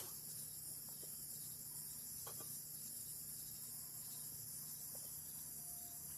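Night-time chorus of crickets: a steady high-pitched trilling, over a faint steady low hum.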